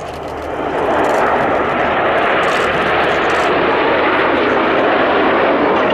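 A formation of nine BAe Hawk T.1 jets flying by, the noise of their Rolls-Royce Turbomeca Adour turbofan engines. It swells over the first second and then holds steady.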